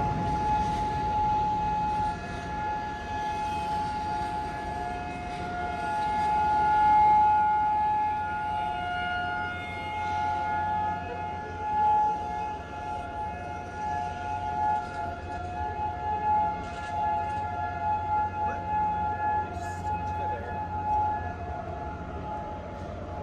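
Outdoor tornado warning sirens, a Federal Signal 2001 and a Modulator, sounding the steady-tone Alert signal of a monthly siren test. Two steady pitches sound together, swelling and fading, then die away near the end.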